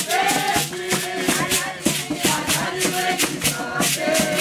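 Background music driven by a steady, fast shaker rhythm under a simple melody.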